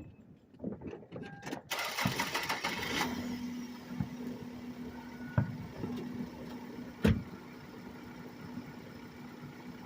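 Celebratory New Year's gunfire heard from a distance: scattered pops, a dense crackling run of rapid shots about two seconds in, then separate bangs, the loudest about seven seconds in. A steady low hum runs underneath from about three seconds on.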